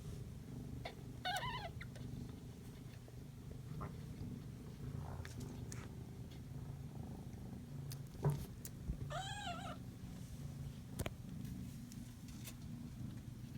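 Kitten purring steadily, with two short high mews, one about a second in and one about nine seconds in, and a sharp tick about eight seconds in.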